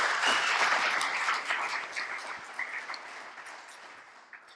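Audience applauding, a dense crowd clapping that fades away gradually over the second half.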